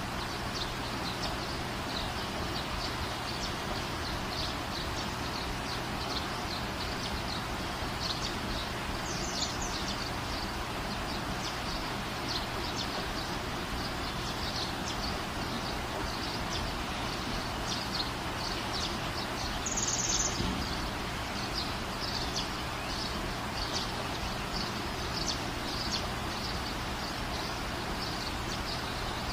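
Small birds chirping repeatedly over a steady background hiss.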